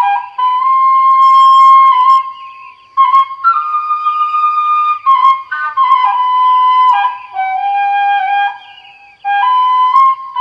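Background music: a solo flute melody of long held notes, dropping out briefly twice.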